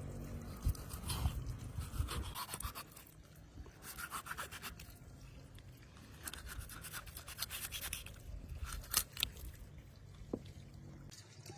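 Short bursts of quick scraping strokes, a few seconds apart.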